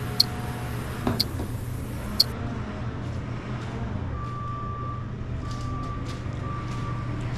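Small gasoline engine of a walk-behind power trowel running at a steady speed, with three light clicks about a second apart near the start.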